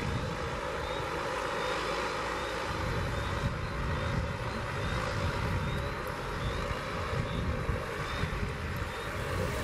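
Twin turboprop engines of a de Havilland Canada DHC-6 Twin Otter running under power as it rolls along a wet runway: a steady propeller and engine drone over a low rumble.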